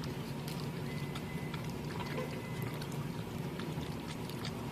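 A dog licking ice cream: faint wet clicks and smacks scattered over a steady low hum inside a car.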